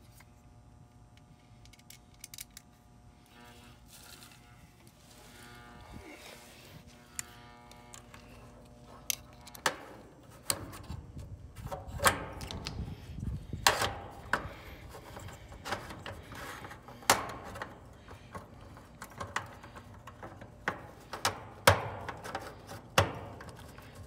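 Hand-handling noise of a round 45/5 dual run capacitor and its metal mounting bracket being worked into place in an air-conditioner condenser: a faint steady hum at first, then from about ten seconds in a string of sharp clicks and knocks with rustling between them.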